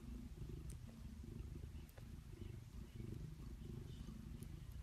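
Domestic cat purring: a low, continuous rumble that swells and eases in phases of about a second, with a few faint clicks.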